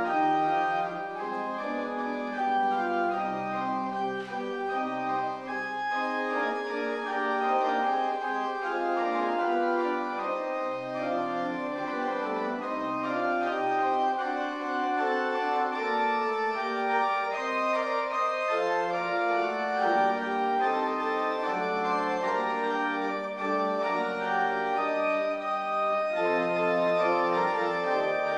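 Church organ playing the postlude: sustained chords that change about once a second, with bass notes dropping in and out.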